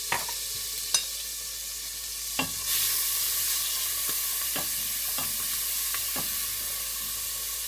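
Garlic and pesto sizzling in hot olive oil in a pot, growing louder about a third of the way in, while a utensil clinks and knocks against the pot several times as the mixture is stirred.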